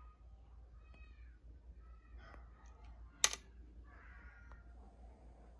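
One sharp click about three seconds in, from a small metal part being handled and fitted on the Ninebot Mini's steering assembly. Faint, repeated high wavering calls run underneath, much like a cat meowing.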